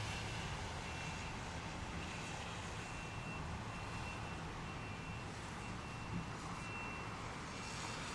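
Steady rain from a heavy downpour with a low rumble underneath, and a faint high beep repeating about once a second.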